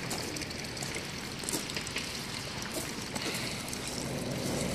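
Water trickling and lightly splashing as a fishing landing net is dipped into the water, with a steady background hiss.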